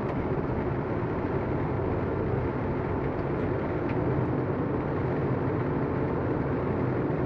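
Steady rush of airflow and engine noise inside a Boeing 777 flight deck during the final approach, even and unchanging, with a low hum beneath it.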